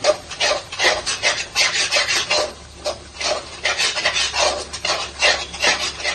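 Metal spatula scraping around the bottom of a kadai, stirring a thick, nearly dry fish masala: a rhythmic rasping of about two to three strokes a second. The scraping keeps the thickened masala from sticking to the bottom of the pan.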